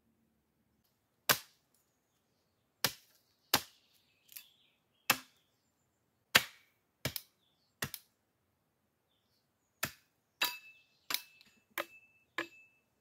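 Hatchet chopping a wooden branch: about a dozen sharp single chops spaced irregularly, coming closer together near the end, with a short ring after the last few.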